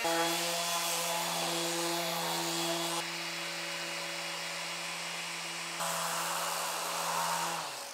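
Handheld electric power tool running steadily: a constant motor hum under a loud whirring hiss of cutting or sanding. The hiss shifts about three seconds in and again near six seconds, and the sound stops just before the end.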